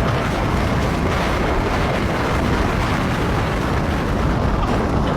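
Loud, steady rushing noise with a deep rumble underneath.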